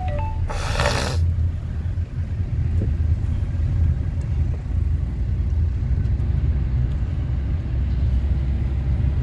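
Suzuki car on the move, heard from inside the cabin: a steady low engine and road rumble. A brief hiss cuts in about half a second in.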